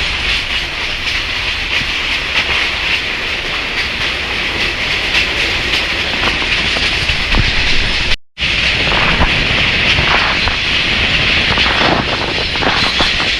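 PeruRail passenger train running along the track: a steady rolling rush with scattered clicks of the wheels over the rails, briefly cut off about eight seconds in.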